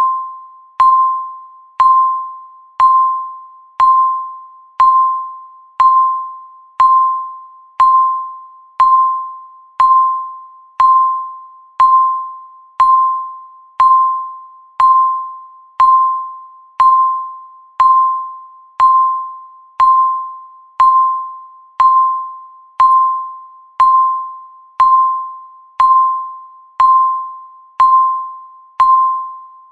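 Countdown timer's tick sound: a short, clear electronic ping, once every second and dying away quickly, marking each second of the count.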